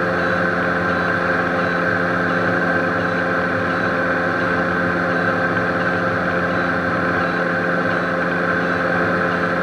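A Beechcraft Baron B55's remaining left engine, a Continental IO-470 flat-six, running steadily in flight, heard inside the cabin over the rush of air. The right engine is shut down with its propeller feathered, so the twin is flying on one engine.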